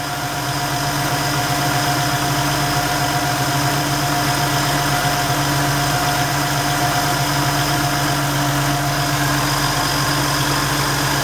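Ford 4.2 L V6 idling steadily, its serpentine belt and accessory pulleys turning, with a steady hum and a faint high whine. It runs with no squeak after the new cam synchronizer, only a little gear noise, which the owner takes for normal.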